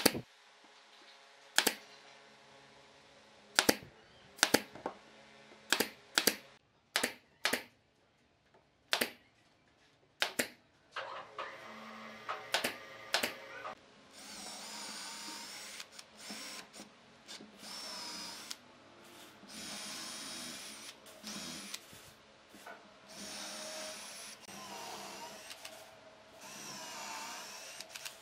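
A nail gun fires about ten sharp shots, one every second or so, into the joints of a wooden chair frame. Past the halfway point a cordless drill with a countersink bit runs in repeated bursts of a second or two, whining as it bores pilot holes into the wooden rail.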